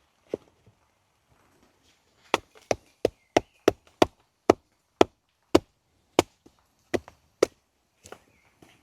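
Wood being chopped: one sharp knock, then about a dozen sharp strikes starting a couple of seconds in. They come about three a second at first and slow down toward the end.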